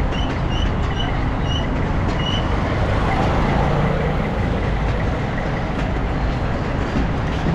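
Steady traffic or vehicle noise, with a run of about six short high chirps in the first two and a half seconds.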